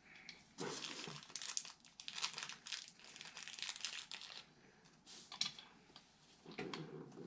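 Packaging crinkled and crumpled by hand, in several irregular crackling bursts.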